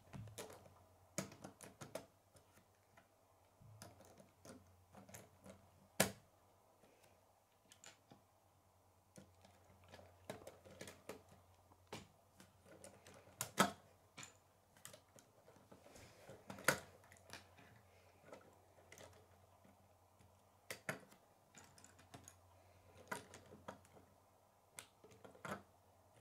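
Plastic K'nex rods and connectors clicking and snapping together as a model is put together by hand: many small, irregular clicks and rattles, with a few louder snaps.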